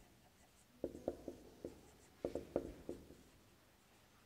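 Marker pen writing on a whiteboard, faint. There are two quick runs of short strokes, one about a second in and another a little after two seconds.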